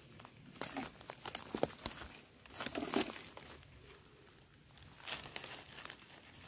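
Dry fallen leaves and twigs rustling and crackling under footsteps and a gloved hand pushing through the leaf litter, in irregular crackles that ease off for a moment around the middle.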